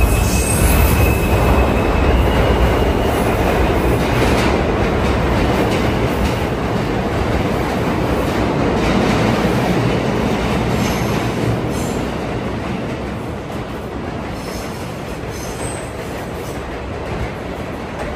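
NYC Subway R160 train pulling out of an underground station and running past along the platform: a steady rumble of wheels on rail, with a few brief high wheel squeals around the middle and later on. The noise eases off in the last few seconds as the cars draw away.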